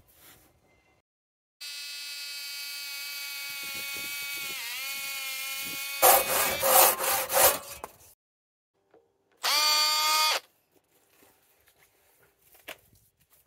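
Cordless drill running: a steady motor whine for about four seconds that sags briefly under load, then a loud, rough grinding for about two seconds as the bit bores into the end of a Christmas-tree trunk. Near the middle comes a short burst of drill whine that rises as the motor spins up.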